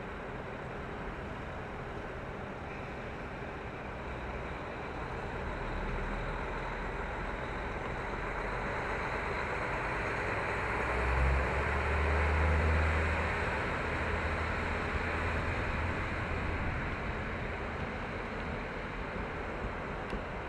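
JR Hokkaido KiHa 40 diesel railcar pulling away from the station: its diesel engine revs up under load, loudest about eleven to thirteen seconds in, with wheel and running noise. The sound then eases off slowly as the car moves away down the line.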